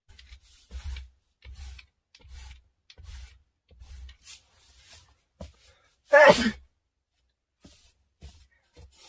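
A person sneezing: a run of short breathy sounds, then one loud sneeze about six seconds in, followed by a few faint breaths.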